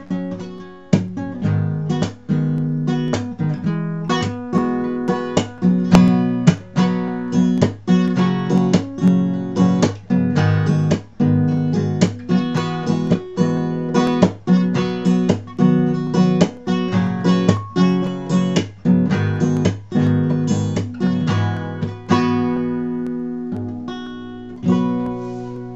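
Acoustic guitar fingerpicked, a steady run of plucked notes and chords. Near the end the picking slows and a last chord is left to ring and fade.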